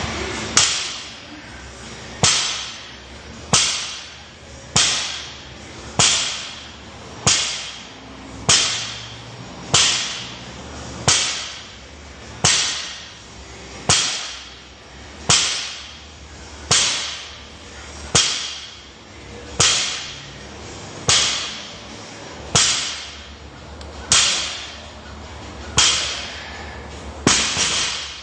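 Loaded barbell with bumper plates coming down on the gym floor at each deadlift rep: about twenty sharp impacts, one every second and a half or so, each ringing out briefly, the spacing slowly widening.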